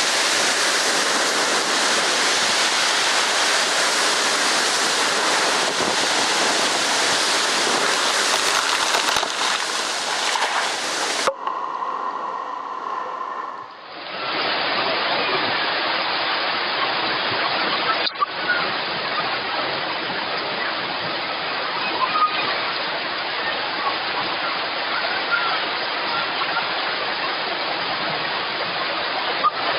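Steady roar of rushing, turbulent water, like heavy surf. The sound changes briefly about eleven seconds in, then the water noise returns from about fourteen seconds.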